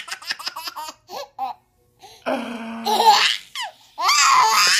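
A baby laughing hard in quick, choppy bursts that break into long belly laughs, the loudest just before the end. A short, steady buzzing sound comes about two seconds in, after a brief pause.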